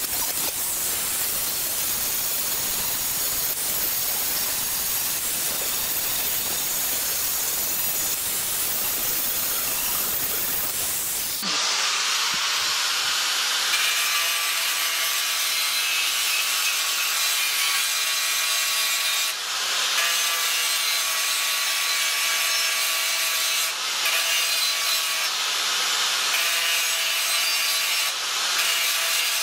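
Handheld angle grinder with an abrasive disc grinding rust off the steel blade of an old hoe clamped in a vise: a steady grinding hiss. About eleven seconds in it turns brighter, with a steady whine from the grinder, and it dips briefly a few times later on.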